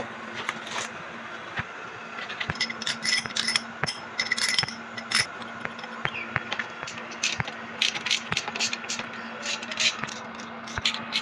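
Steel hydraulic fittings and hand tools clinking, scraping and ticking against the metal valve head of a Sauer-Danfoss hydraulic drive motor as the fittings are threaded in and tightened. There are irregular sharp metallic clicks, some ringing briefly, over a steady low hum.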